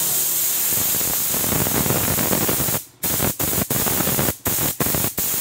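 Anest Iwata W-50-124BPG mini gravity-feed spray gun hissing steadily as compressed air blows through it. In the second half the trigger is let go and squeezed again six times in quick succession, each release cutting the hiss off briefly.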